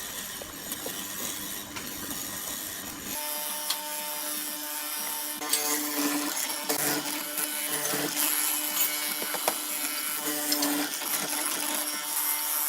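Wood being worked with a tool: continuous rasping noise, joined about three seconds in by a steady hum that grows louder now and then, with a few sharp clicks.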